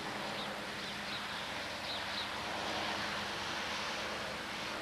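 Distant helicopter giving a steady drone, with a few faint high chirps in the first half.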